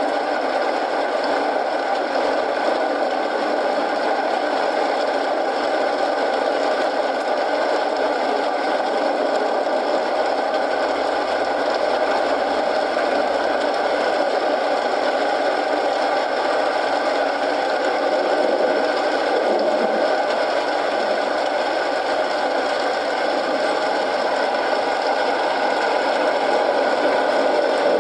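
Steady rain mixed with a wood fire crackling in a fireplace, an even, unbroken wash of sound.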